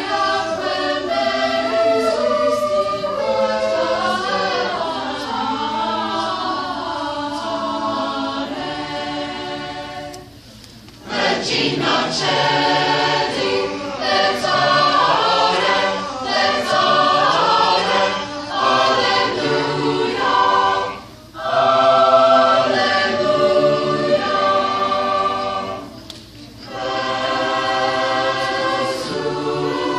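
Mixed teenage choir singing, with three short pauses between phrases: about a third of the way in, and twice more in the last third.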